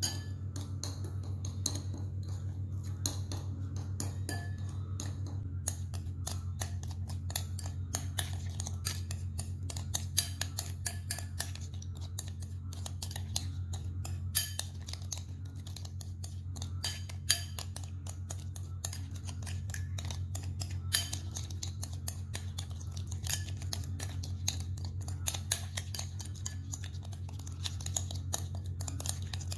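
Metal spoon clinking and scraping against a ceramic bowl while stirring a thick sauce, in quick irregular clinks, over a steady low hum.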